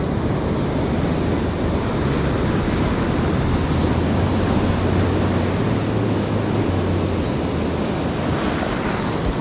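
Steady noise of ocean surf, with wind buffeting the microphone.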